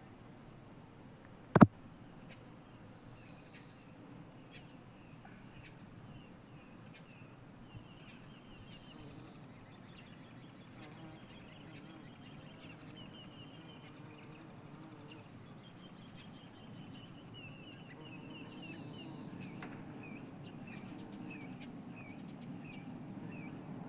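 Small birds calling in runs of short, quick high chirps over a steady low rumble of outdoor background noise. A single sharp click, the loudest sound, comes about a second and a half in.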